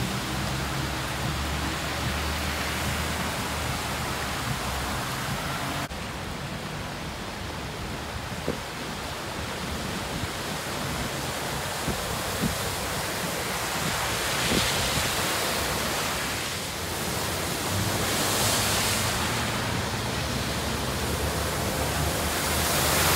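Heavy rain with cars driving through deep floodwater, their tyres throwing up spray in whooshing swells; the loudest comes near the end as a pickup ploughs through. A low vehicle hum runs under the rain for the first few seconds.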